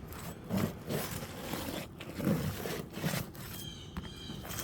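Roofing tools scraping and knocking against asphalt shingles as a stuck roofing nail is worked loose, in uneven strokes with sharp clicks. A thin high tone starts near the end.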